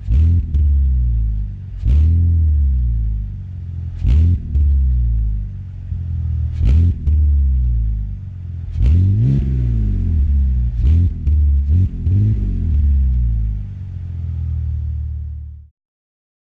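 BMW X3 E83's 3.0-litre M54B30 straight-six exhaust, the engine blipped in short revs about every two seconds, pitch rising and falling back to a low idle between them, with one longer rev about nine seconds in. The sound cuts off suddenly near the end.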